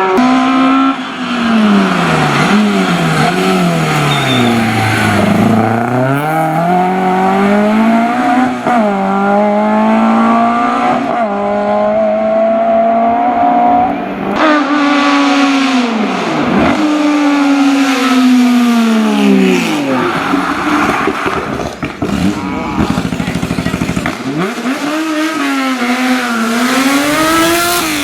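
Historic rally car engines at full throttle, pitch climbing on each gear and dropping at the shifts and under braking, with cars sweeping past at speed.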